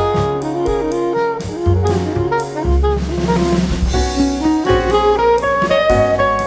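Jazz background music with a saxophone-like lead melody over bass and a drum kit.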